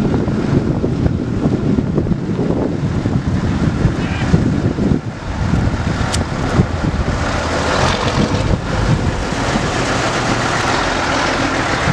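Vintage heavy tow truck's engine rumbling as the truck drives slowly past at close range, growing fuller as it goes by about two-thirds of the way through, with antique fire engines running behind it.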